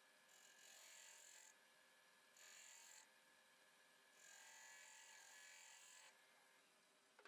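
Faint small power tool motor whirring in three short bursts, the last and longest about two seconds.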